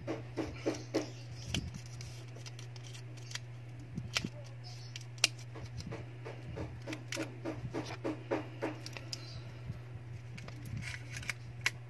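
Irregular clicks, taps and light scraping as the plastic and metal parts of a Vivo Y91 phone are handled and pressed together during reassembly onto a replacement LCD, some clicks coming in quick runs. A steady low hum runs underneath.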